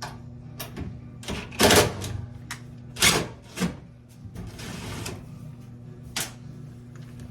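Cordless impact driver running in short bursts to back out the screws holding a washer/dryer top cover, with clicks and knocks of handling between bursts. A steady low hum lies underneath.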